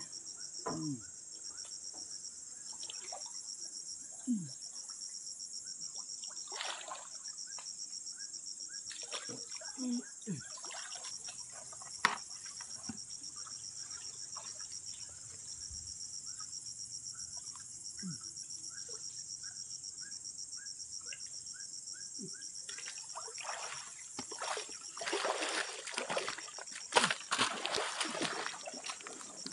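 Pond water splashing and sloshing as people wade chest-deep through it, with scattered single splashes and a longer run of splashing near the end as a man wades fast. A steady, pulsing insect chorus carries on underneath.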